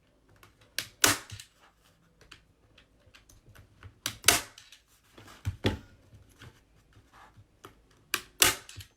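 A staple gun firing staples through canvas into a wooden frame: several sharp clacks at uneven intervals, about four loud ones, with smaller knocks and handling sounds between.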